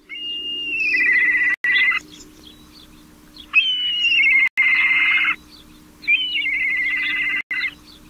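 An all-brown, medium-sized African raptor, an intra-African migrant, calls three times. Each call is a high, quavering whistle that drops into a rapid trill and lasts about two seconds.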